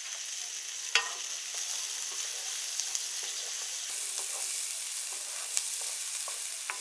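Diced onion sizzling in melted butter in a non-stick frying pan, with a steady frying hiss and small scrapes and taps as a wooden spatula stirs it. One sharper knock sounds about a second in.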